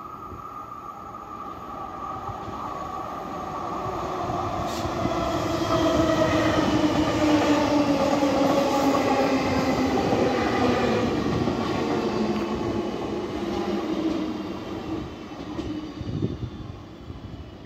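SNCB AM08 Desiro electric multiple unit passing close by: the rumble of its wheels on the rails builds over the first few seconds, is loudest in the middle, then fades as it runs away. A whine from the train falls slowly in pitch as it goes by.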